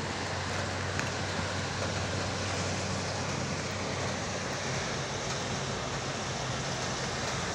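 Steady hiss of rain falling over a city, mixed with a low hum of traffic on wet roads.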